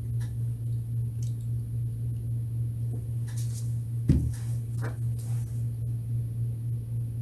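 Steady low hum under faint handling of plastic squeeze bottles of acrylic paint. About four seconds in, a single dull thump as a bottle is set down on the table.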